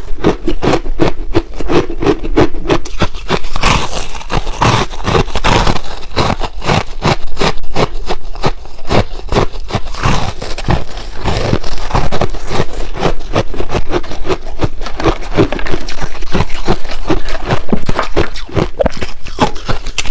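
Ice being chewed close to the microphone: a rapid, continuous run of loud crunches, several a second, with a wet crackle between bites.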